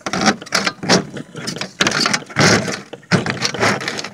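Hand saw cutting through a perforated plastic panel, with a rasping stroke about two to three times a second.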